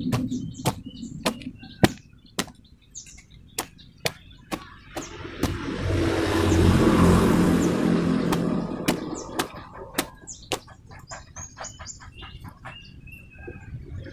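Small birds chirping in short, sharp notes all through. A motor vehicle passes in the middle, its rumble swelling and then fading.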